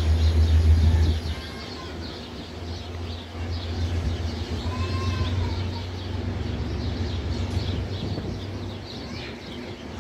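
Metro-North locomotive-hauled commuter train pulling out of the station: a steady low rumble from the locomotive, loudest in the first second or so. Faint high chirps run over it, with a short squeal about halfway through.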